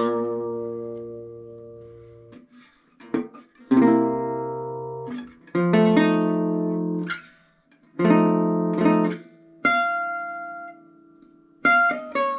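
Eastman DM1 gypsy jazz guitar, its soundhole damped with a cork coaster, played with a heavy pick. Chords are struck one at a time, each left to ring for a second or so and then cut off, with short gaps between. Near the end comes a quick run of single notes stepping downward.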